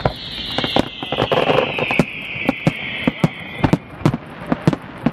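Fireworks display: a run of sharp bangs and crackles from exploding shells, coming faster in the second half. Over the first three and a half seconds a long high whistle slides slowly down in pitch.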